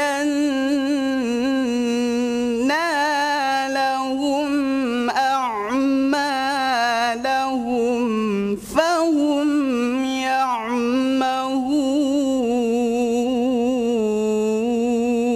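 A young male qari's voice in melodic tilawah recitation of the Quran: long drawn-out melismatic phrases held on a wavering, ornamented pitch, with one short break just past halfway.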